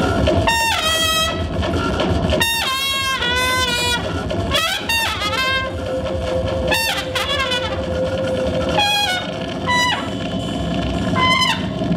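Trumpet playing short, separate phrases of bending, wavering notes over a continuous bed of low electronic noise from synth and effects gear, with a steady held tone sounding under the trumpet through the middle.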